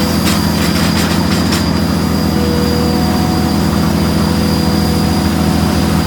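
Heavy plant running steadily: the Powerscreen jaw crusher and the excavator's diesel engine make a constant loud drone. A few sharp clatters of chalk striking metal come in the first second and a half, then the drone carries on alone with a faint steady whine.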